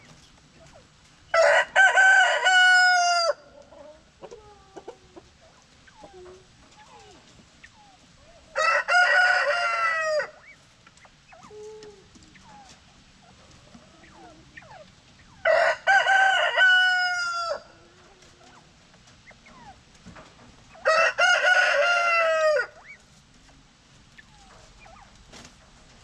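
A rooster crowing four times, each crow about two seconds long, with faint short chirps between the crows.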